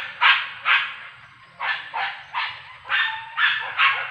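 Hunting dogs barking: quick, sharp, high barks, two or three a second, with a short pause about a second in. This is typical of dogs baying at a wild boar holed up in thick cover.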